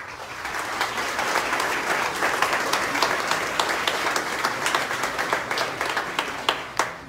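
Audience applause that builds over the first second and holds. It is dense and loud, with a few sharper single claps near the end before it fades away.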